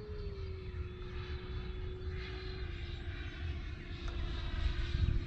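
A 110 mm electric ducted fan on a foam L-39 model jet, powered by a 780kv Hacker motor, whines steadily in flight. Its pitch steps down slightly about a third of a second in and again about two and a half seconds in, as the throttle is eased for the landing approach.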